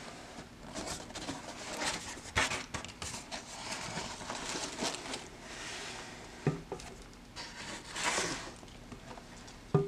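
A cardboard shoebox being handled and opened, with its lid and sides scraping and rustling, and a few light knocks as the box and a canvas sneaker are set down on a table.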